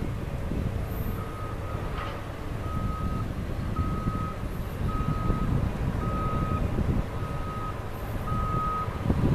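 Vehicle reversing alarm beeping at one steady pitch, about one beep a second, starting about a second in. Under it runs a steady low rumble.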